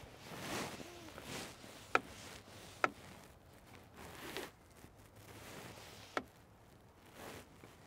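A hand air pump being worked to push air through a homemade pickle-jar smoke machine: several soft whooshes of air, with three sharp clicks at about two, three and six seconds in.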